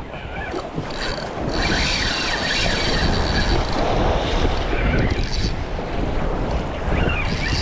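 Wind buffeting the microphone over the wash of waves. A thin, steady high whirr rises above it from about a second and a half in until about five and a half seconds.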